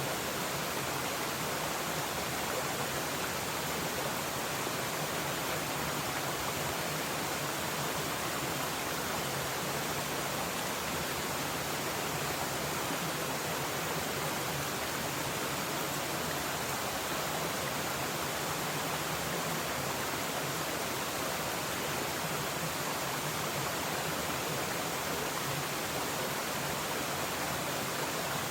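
Mountain stream running steadily, a continuous even rush of flowing water.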